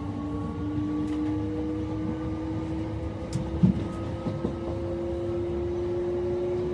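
Class 376 Electrostar electric multiple unit accelerating hard from a stand, its traction motors giving a whine that rises slowly in pitch over a low rumble. A single sharp knock comes a little past halfway.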